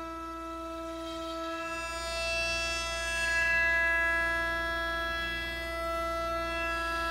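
CNC router spindle running with a steady high-pitched whine as its bit cuts a wooden block, a hiss of cutting swelling about two to four seconds in.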